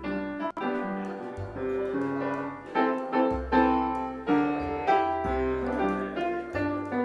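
Background music: a piano tune over low bass notes.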